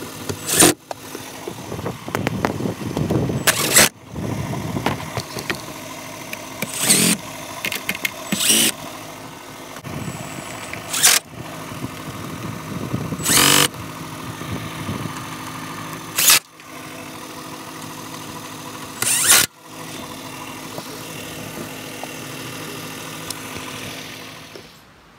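Cordless drill-driver with a socket bit running screws into a car's plastic underbody splash shield, in about eight short bursts a few seconds apart, one per screw, over a steady hum.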